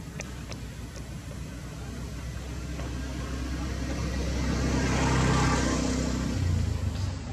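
A motor vehicle engine passing by: a low hum that grows louder, peaks about five seconds in, then fades.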